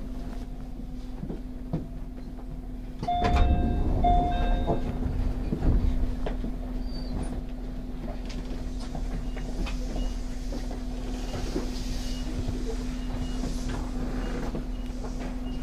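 Inside a 211 series 5000 electric train standing still: a steady electrical hum. About three seconds in, a short two-part tone sounds, with low thumps and rumbling for a few seconds.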